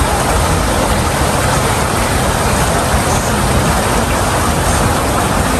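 Steady, loud rushing hiss from the fog-mist sprayers along a reflecting pool, with a fluttering low rumble underneath.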